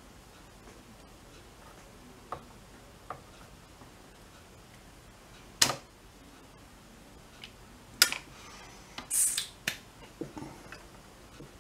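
Scattered clicks and taps of small hand tools, a soldering iron and hemostat clamp, handled against a circuit board and workbench during soldering. Two sharp clicks stand out a few seconds apart, followed by a brief hiss and a few lighter taps.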